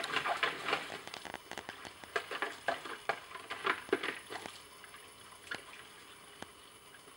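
Bernese mountain dog splashing at the water in a plastic paddling pool with its paws and snout: irregular splashes that die away after about four and a half seconds.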